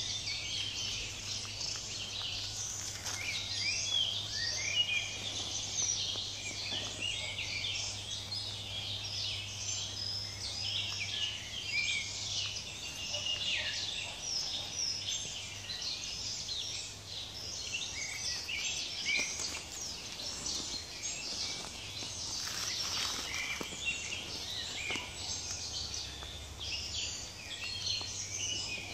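Woodland songbirds singing and calling together, a dense chorus of short chirps and trills that never stops, over a low steady hum.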